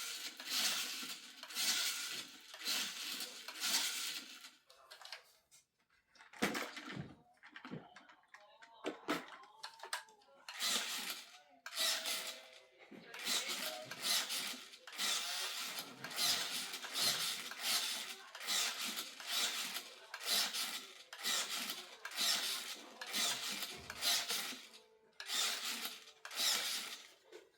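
Repeated rubbing and scraping noises in short strokes, dozens of them, with brief pauses between.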